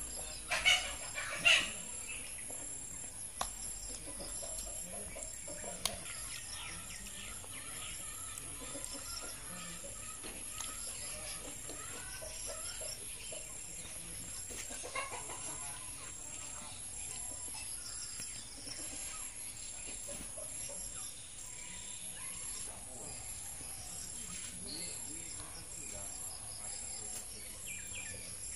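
Chickens clucking in the background over a steady high insect drone, with two louder sounds about a second in.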